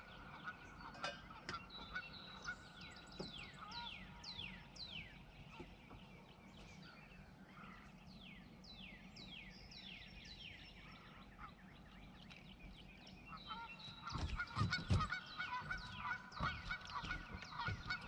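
Birds calling repeatedly, many short falling calls one after another, with a goose-like honking quality. About fourteen seconds in, a few louder knocks and bumps come in under the calls.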